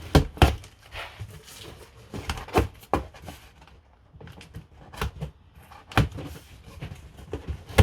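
Irregular knocks and clunks of hard objects being handled, about a dozen sharp hits of varying strength, the loudest in the first half-second and again around six seconds in, with light rustling between them.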